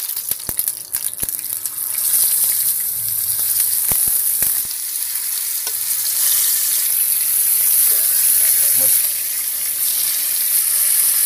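Marinated tilapia pieces sizzling in hot oil on a flat tawa along with curry leaves. Sharp crackles and pops come in the first couple of seconds, and the sizzle turns louder from about two seconds in as the fish goes into the oil.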